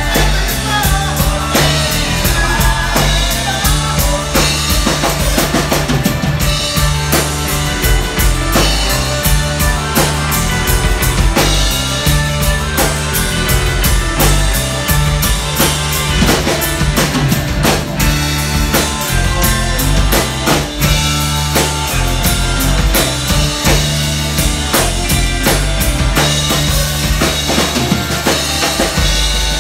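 Live rock band playing an instrumental passage without vocals: a drum kit with bass drum and snare keeps a steady beat under electric guitars.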